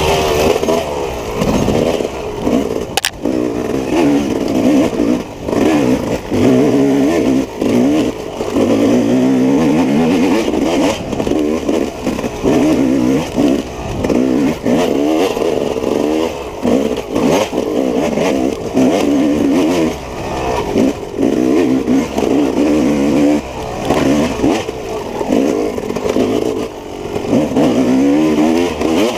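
Off-road racing dirt bike engine revving hard and dropping off again over and over, its pitch rising and falling every second or two. There is a sharp click about three seconds in.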